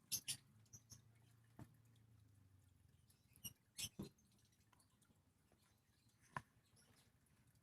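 Faint, scattered short squeaks and rubs of hands massaging a child's back, about seven of them, three close together near the middle.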